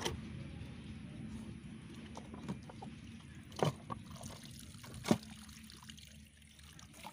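Water trickling out of a plastic bottle fish trap as it is tipped to drain, fading away, with a few sharp clicks, the loudest about three and a half and five seconds in.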